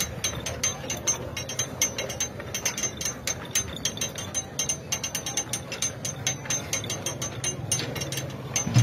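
Rapid, irregular metallic clicking and jingling from a bull akhara rig, as a yoked pair of bulls drags the beam and spoked wheel around the central post. A low crowd murmur runs underneath.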